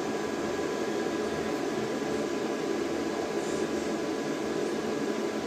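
Steady whir of cooling fans with a faint high whine over it, from the power station and inverter running under a heavy 240 V load of about 10 amps.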